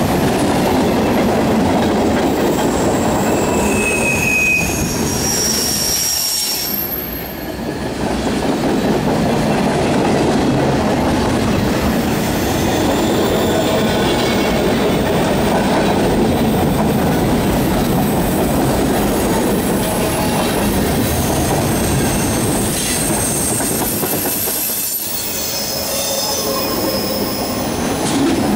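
Freight cars of a mixed manifest train rolling past at speed: a steady rumble of steel wheels on rail. Brief high-pitched wheel squeals come a few seconds in and again near the end.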